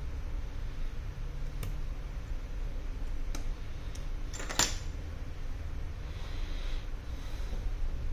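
A few light clicks and one sharper tap just past halfway, from small repair tools being handled on a silicone work mat, over a steady low hum.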